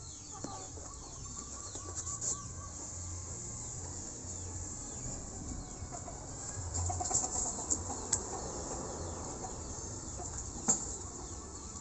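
A chicken clucking in short repeated notes. Occasional sharp taps and rustles come from a cardboard box and foam packing being handled; the loudest tap is near the end.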